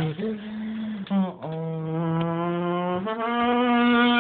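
Husky puppy howling in long drawn-out notes: three held howls, the middle one lower and the last one higher and the longest.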